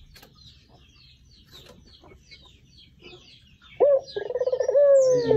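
Small birds chirping, a quick run of short high downward chirps several times a second. About four seconds in, a much louder, drawn-out call starts, with a short first note and then a long one that falls in pitch at the end.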